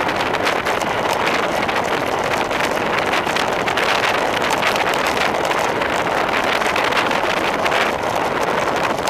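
Wind rushing over the microphone of a handlebar-mounted camera on a road bike descending at speed: a steady, loud rushing noise that eases slightly about eight seconds in.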